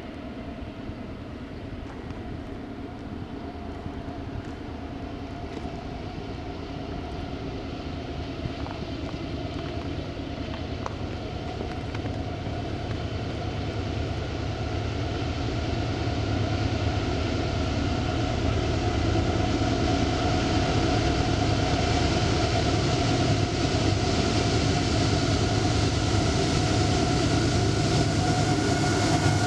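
Freight train's diesel locomotive approaching: a low rumble and a steady engine whine growing steadily louder, the whine dipping slightly in pitch near the end as the lead locomotive passes.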